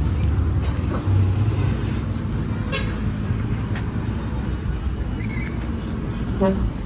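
Heavy diesel earthmoving machinery running with a steady low rumble, swelling briefly about a second in, with a few faint clicks and a short pitched toot near the end.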